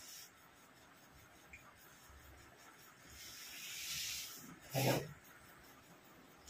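Mouth and breath sounds from a person eating a rice meal by hand: a rising hiss of drawn-in air about three seconds in, then one short, sharp vocal sound from the throat, the loudest thing here, just before five seconds.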